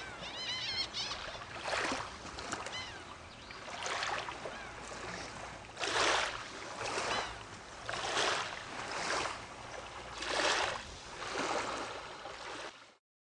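Small sea waves washing and lapping in separate swells about once a second, with a few short high chirps near the start. It cuts off suddenly near the end.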